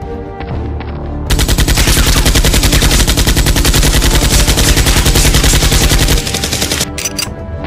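Dubbed automatic-gunfire sound effect: one long burst of rapid shots starting just over a second in and lasting about five seconds, over background music. A couple of further shots follow a second later.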